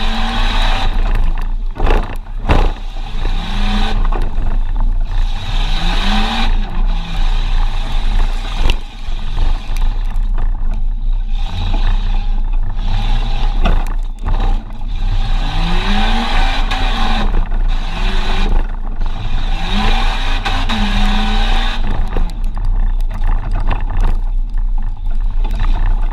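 Tough-truck engine revving up and falling back again and again as it runs an off-road course, with sharp knocks and clatter from the truck being thrown around, loudest a couple of seconds in.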